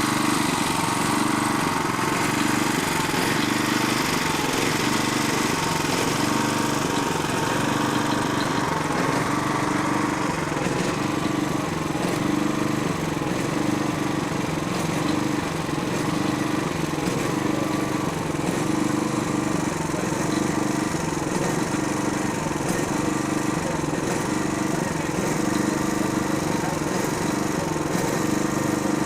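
A tractor engine running steadily, its note wavering slightly up and down every second or two.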